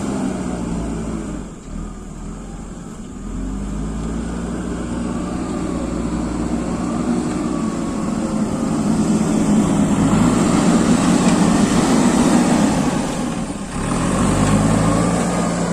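JCB backhoe loader's diesel engine working under changing load, its pitch rising and falling. It is loudest a little past the middle, with a short drop near the end.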